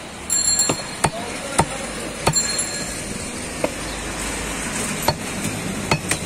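Heavy meat cleaver chopping beef on a round wooden chopping block: about ten sharp chops at irregular intervals, several in quick succession near the start, over steady background noise.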